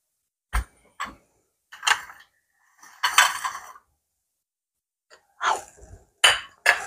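Kitchen items being handled and set down on a countertop: a few sharp knocks and clunks, with a longer scraping rustle about three seconds in and three more quick knocks near the end.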